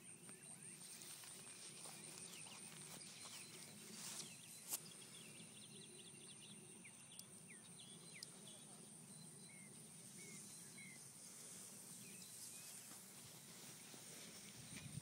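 Faint outdoor ambience: a steady high-pitched insect drone with scattered short bird chirps, and one sharp click about five seconds in.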